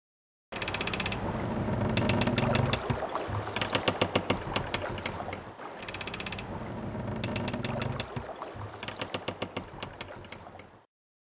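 Machinery clattering with rapid ticking over a low steady hum. The same sequence of about five seconds plays twice, and the sound cuts off abruptly near the end.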